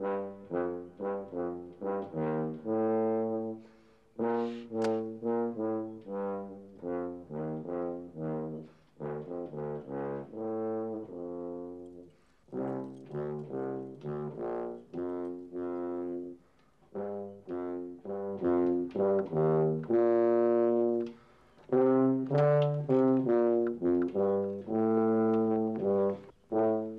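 Tuba played solo: a slow melody of separate notes in short phrases with brief pauses, louder in the last few seconds.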